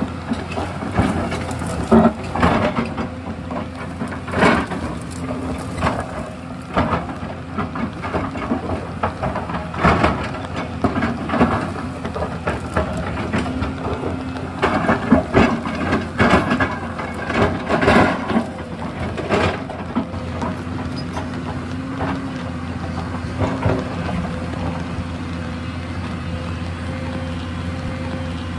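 Excavator diesel engine running steadily under a dense run of heavy knocks and clanks as it digs. The knocks thin out about twenty seconds in, leaving the engine on its own.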